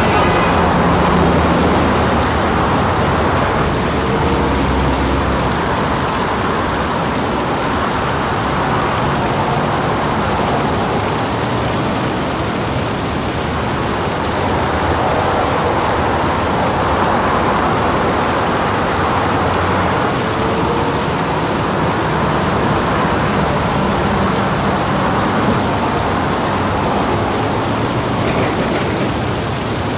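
Steady city traffic noise, swelling gently every several seconds as vehicles pass.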